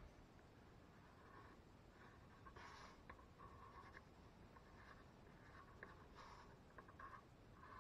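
Faint scratching of a pencil drawn over plywood in short repeated strokes, sketching a curved outline, with a couple of firmer strokes.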